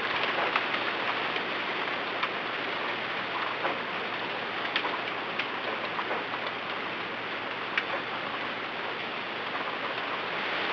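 Steady rain hiss with scattered sharp ticks of single drops striking a surface.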